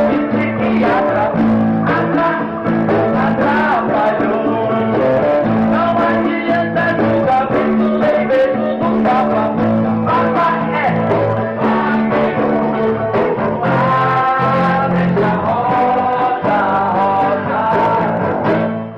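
Live band playing a rock-style song: guitars with singing voices.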